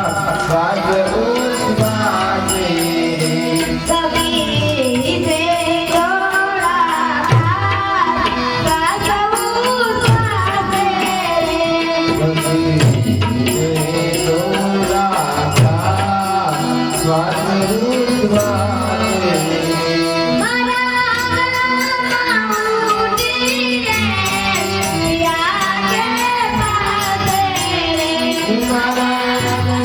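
Hindu devotional bhajan music: singing over steady drum accompaniment, without a pause.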